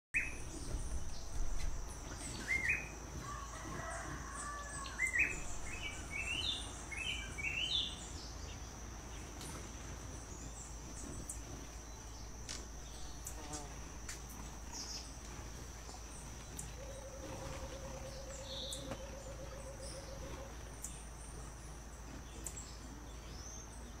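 Forest ambience: a run of short, rising bird chirps in the first eight seconds over a steady high insect whine, with a low pulsing buzz for a few seconds past the middle.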